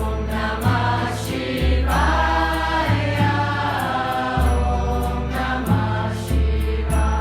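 Devotional mantra chanting (kirtan) sung by a group of voices over music with a steady beat and long deep bass notes.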